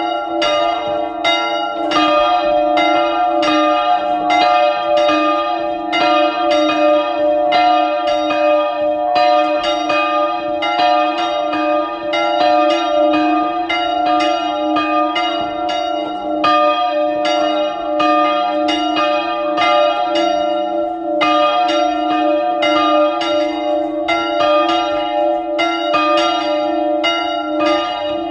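Two hand-swung church bells, an E-flat bell cast in 1561 and an F bell cast in 1699, ringing together in a full peal, their strokes overlapping at about two to three a second and ringing on continuously.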